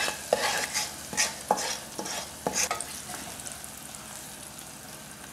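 Hot spice-infused oil sizzling as it is poured over ground chillies in a stainless steel pot. A wooden spatula scrapes and knocks against the metal about six times in the first three seconds, then stirs the mixture while the sizzle goes on steadily.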